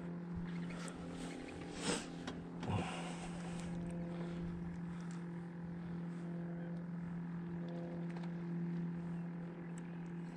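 Steady, even hum of a boat motor running at constant speed, with two brief knocks about two and three seconds in.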